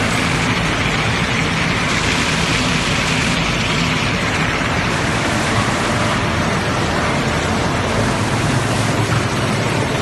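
PE film recycling and washing line running: a steady, dense rush of machine noise with a low electric-motor hum underneath.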